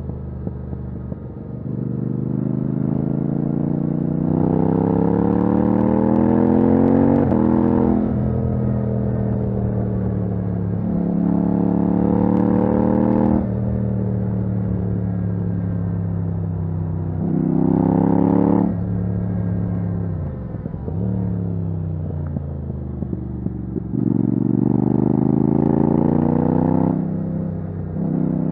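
Yamaha MT-07's 689 cc parallel-twin engine through a titanium Akrapovic exhaust with the dB killer removed, under hard acceleration. The engine note climbs repeatedly and falls sharply at each upshift, about four times, with the revs dropping lower once around two-thirds of the way through as the bike slows.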